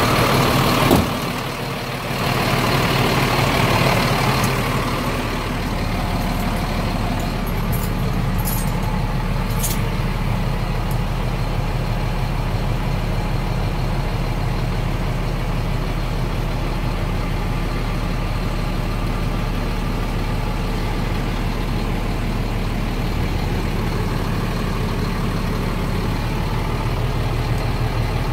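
Scania G400's diesel engine idling steadily at low revs, a low even hum. A sudden knock comes about a second in, with some shuffling noise for a few seconds after it.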